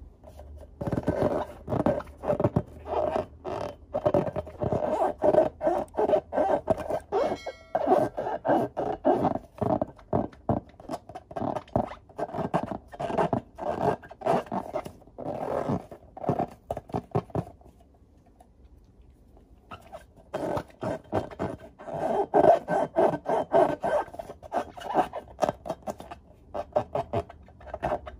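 Hands rubbing and squeezing filled latex balloons: a quick run of rubbery squeaks and scrapes, pausing for about two seconds about two-thirds of the way through, then starting again.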